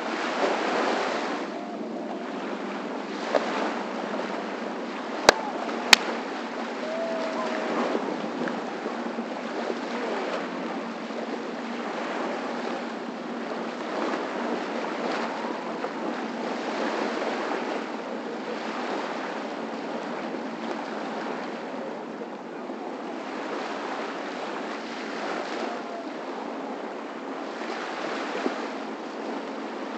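Small waves washing up on a sandy beach, swelling every few seconds. Two sharp clicks come close together about five seconds in.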